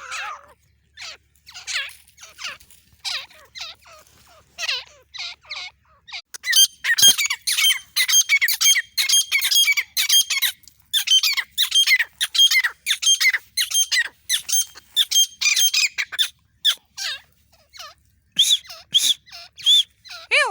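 Grey francolins calling with loud, harsh, squawking notes. The calls are scattered at first, then run fast and almost unbroken from about six seconds in to about sixteen, and thin out near the end.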